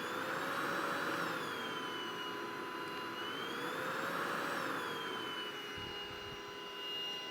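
Belife cordless stick vacuum cleaner running, its motor whine rising and falling in pitch twice as it is switched into turbo mode and back. A brief low thud near the end.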